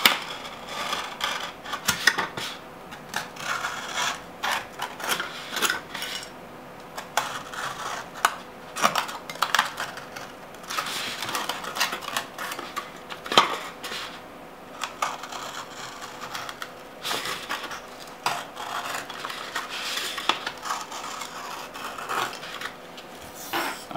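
Hobby knife cutting around the bottom of a thin white disposable bowl: irregular scraping strokes and sharp clicks and cracks as the blade works through the material and the bowl is turned, one click louder than the rest about 13 seconds in.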